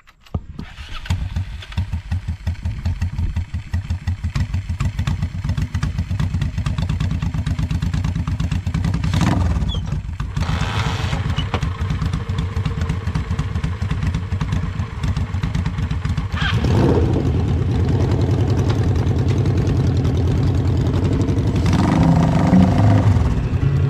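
Motorcycle engine, the inline-four of a Suzuki GSX750S-based custom chopper, coming in loud about half a second in and running steadily under way, its revs surging and dropping a few times as it rides.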